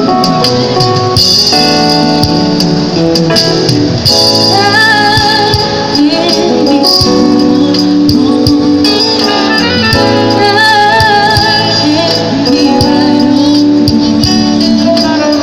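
Live band playing a slow ballad, with a woman singing lead through a microphone over keyboard and guitar accompaniment and light percussion keeping time, all amplified through PA speakers.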